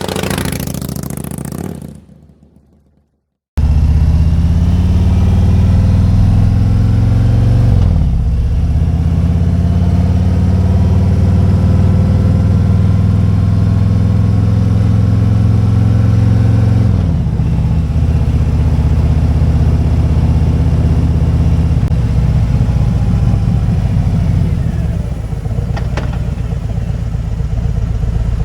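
Motorcycle engine under way, after a short burst of noise and a brief silence: its pitch climbs as it pulls away, changes with a gear shift about eight seconds in, holds steady, then falls as the throttle eases off about seventeen seconds in, running lower and a little quieter near the end.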